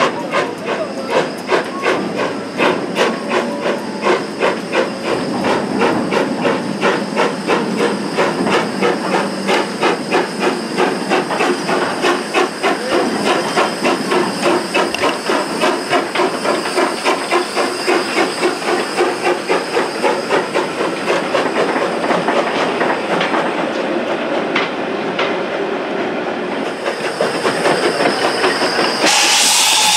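Steam tank locomotive hauling a train, its exhaust chuffing in a steady rhythm that gradually quickens as it moves off. Near the end comes a loud burst of hissing steam.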